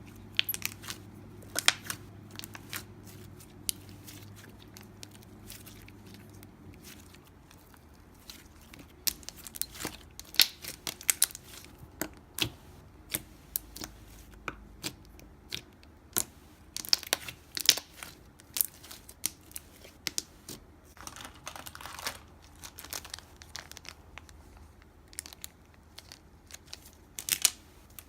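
Handmade slime being squished, stretched and poked by hand, giving irregular sharp crackling clicks and pops. A low steady hum under it stops about a quarter of the way in.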